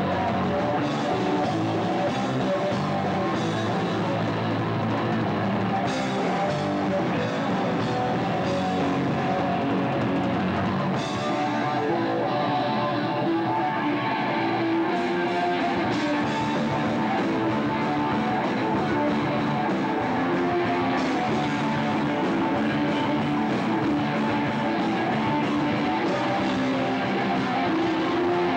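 Rock band playing live: electric guitar and drum kit, with cymbal crashes every few seconds.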